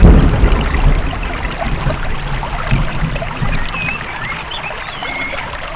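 Wind rushing on the microphone over water washing at the shore, the wind loudest at the start.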